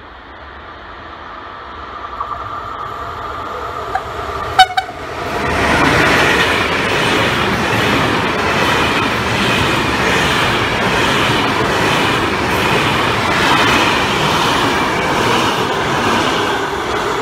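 A train approaching and then passing close by at speed: the sound builds over the first few seconds, with a sharp click about four and a half seconds in, then a loud, sustained rush of wheels on rail that eases slightly near the end.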